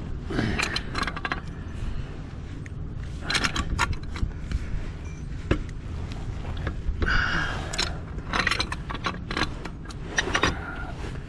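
Irregular metallic clinks, rattles and scrapes of a wrench and metal fittings being worked on a gas service riser pipe, over a low steady rumble.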